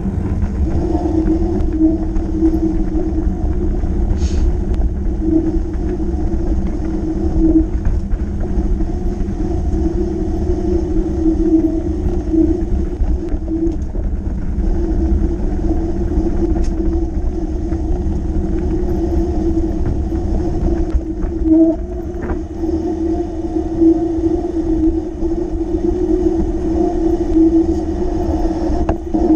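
Riding noise of a fat bike picked up by an action camera on the bike: a steady low rumble of wind and tyres rolling over asphalt, cobbles and grass, with a constant hum and a few brief clicks and knocks from the bike.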